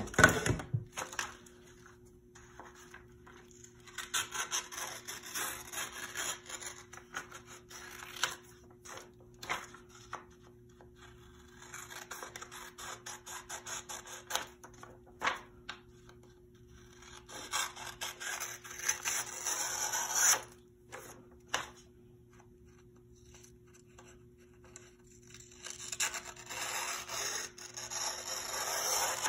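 Scissors cutting through a printed sublimation transfer sheet, in about four spells of crisp snipping a few seconds each, with a sharp knock at the start and a low steady hum underneath.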